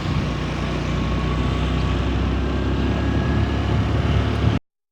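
Honda Vario 150 scooter's single-cylinder engine running steadily, with a constant low hum and a rush of noise. It cuts off suddenly near the end.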